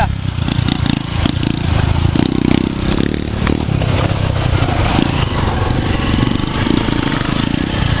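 Motorcycle engine running steadily while riding, with a constant drone and scattered short knocks and rattles.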